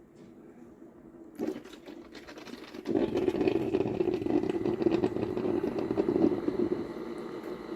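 Ninja DualBrew coffee maker running at the start of a brew cycle, its pump and heater humming and whirring before any coffee pours. The hum gets louder about a second and a half in, then louder again about three seconds in, easing slightly near the end.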